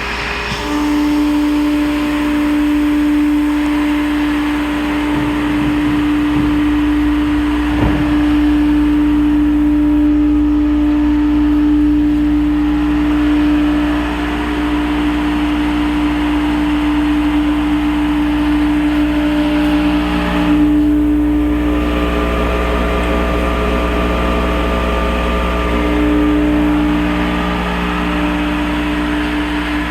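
Maximus 10 HP direct-drive rotary screw air compressor running steadily: a constant low hum with a strong, steady tone that comes in about a second in.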